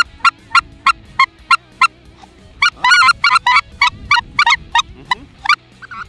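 Hand-held goose call blown in short honks: an even string of about three honks a second, then a faster run of honks and doubled notes before stopping about five and a half seconds in.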